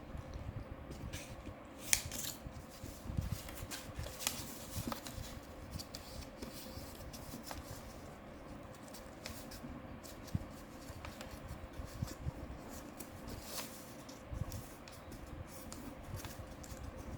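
Square sheet of origami paper being folded and creased by hand: soft rustling with scattered short crinkles and clicks, the sharpest about two seconds in.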